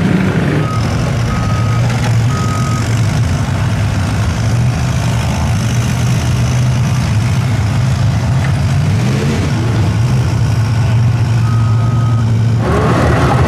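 Heavy diesel engine running steadily as a tracked excavator drags a stuck mud truck out by a chain. Its warning alarm beeps three times about a second apart near the start and once more, slightly longer, near the end.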